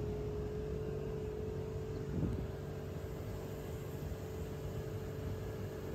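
Road vehicle heard from inside the cabin while driving: steady engine and tyre rumble with a constant hum, and one brief bump about two seconds in.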